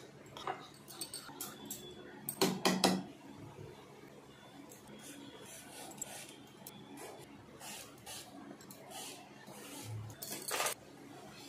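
A wire whisk clinking against a bowl as batter is stirred, with a cluster of louder knocks about two and a half seconds in. Then a hand peeler scraping the skin off eggplants in short strokes.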